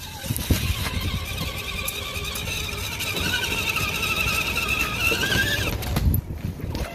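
Redcat Gen7 RC crawler's electric motor and gear drive whining as it drives forward, heard up close from the truck itself, with knocks from the chassis and tyres on rough ground. The whine wavers, rises slightly, then stops about six seconds in.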